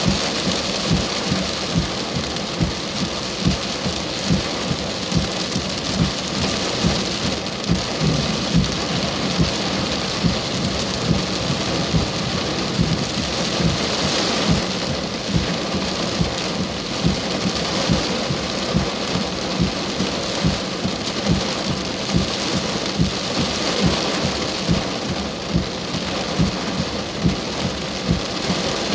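Heavy rain falling steadily during a thunderstorm, with big drops striking a hard surface close to the microphone as frequent short thuds.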